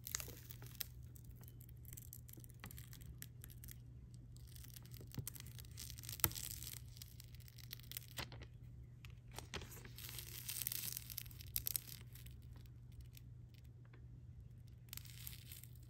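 Quiet rustling and light handling of small stationery items and their packaging, with scattered soft clicks and taps; the sharpest click comes about six seconds in, and a run of rustling follows around ten to twelve seconds in.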